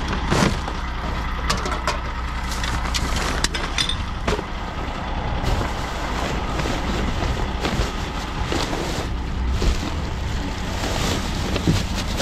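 Paper and plastic bags rustling and crinkling as gloved hands rummage through a wheelie bin, with short clicks and knocks of bottles and cans. Underneath runs the steady hum of an idling vehicle engine.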